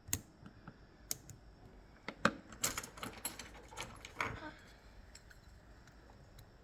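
Sharp metallic clicks and small rattles of lock parts being handled during the disassembly of an Ezcurra DS-10 lock: pins, springs and tools clicking and jingling. The clicks come thickest about two to four seconds in.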